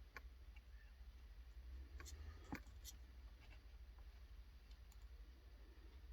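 Near silence with a few faint, sharp clicks of small tools and wires being handled during soldering.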